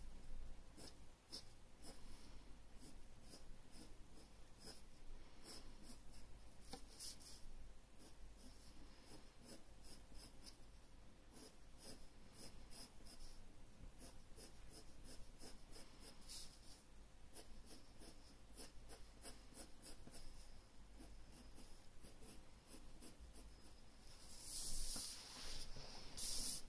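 Graphite pencil scratching on drawing paper in many short, faint strokes. Near the end comes a louder rustle of paper as the loose sheet under the drawing hand is shifted.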